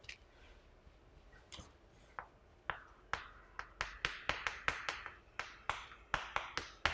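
Chalk tapping and scratching on a chalkboard as words are written. The taps are sparse at first, then from about three seconds in they come as a quick run of sharp taps with short scrapes.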